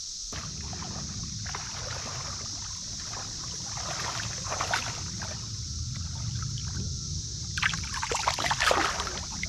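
Water splashing and sloshing beside a small boat in irregular bursts, the loudest near the end, over a steady high-pitched drone.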